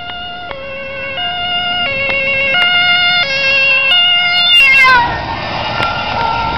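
Ambulance two-tone siren alternating between a low and a high note, each held under a second, growing louder as the ambulance approaches on an urgent call. About five seconds in, the siren's pitch drops as the ambulance passes, and the noise of the passing vehicle follows.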